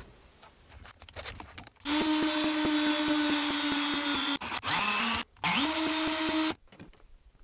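Cordless drill running in three bursts, spinning a sandpaper-wrapped dowel inside the rubber bore of an outboard water-pump impeller to enlarge it. The first run is about two and a half seconds long. The next two are shorter, each rising in pitch as the motor spins up, and all of them stop abruptly.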